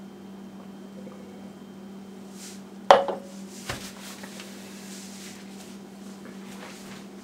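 A drinking glass set down on a granite countertop: one sharp, loud clink with a short ring about three seconds in, then a softer knock. A steady low hum runs underneath.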